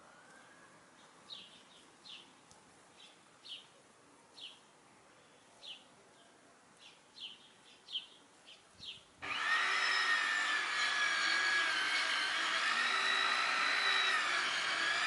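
Faint, scattered high chirps from small birds, then about nine seconds in a loud machine motor starts abruptly and runs on with a steady whine that wavers slightly in pitch.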